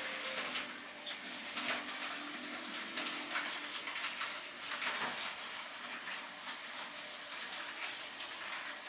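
Steady hissing noise, with faint sustained low tones underneath.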